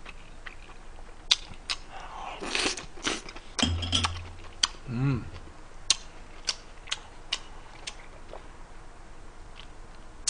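Close-miked eating sounds: chewing and mouth noises with scattered sharp clicks of a fork and a glass jar, and a short hummed "mm" about five seconds in.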